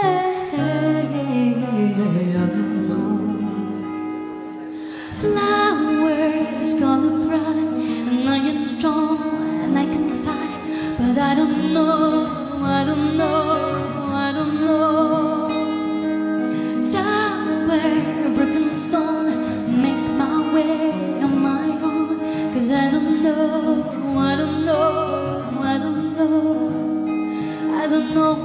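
A woman singing with wavering held notes, accompanied by a steel-string acoustic guitar, in a live performance. The music dips quieter for a moment and comes back fuller about five seconds in.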